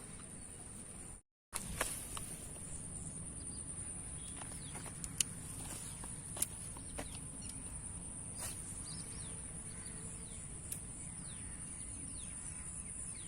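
Outdoor rural ambience: a steady high-pitched insect drone with a few short bird chirps and occasional sharp clicks over a low background rumble. The sound cuts out for a moment about a second in.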